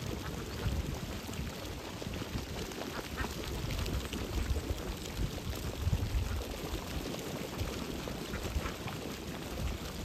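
A flock of domestic ducks dabbling and splashing in shallow water, with scattered quacks and short wet clicks, over a low, uneven rumble.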